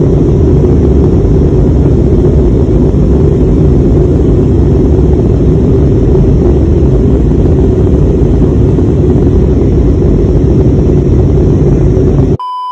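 Loud, steady rumbling noise that cuts off suddenly near the end, giving way to a steady, high electronic beep lasting about a second.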